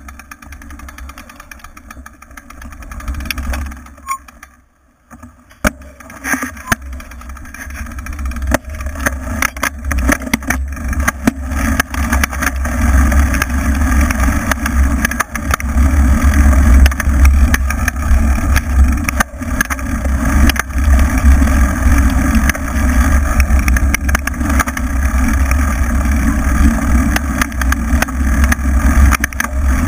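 Wind rumbling on the microphone of a bike-mounted camera while a mountain bike rides a bumpy dirt trail, with frequent knocks and rattles from the bike going over the rough ground. It dips almost to nothing about five seconds in, then grows louder and stays loud.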